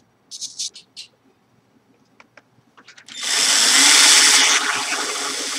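A few light clicks, then an angle grinder run through a dimmer-type speed controller is switched on about three seconds in and keeps running. Its level eases slightly about a second and a half after starting.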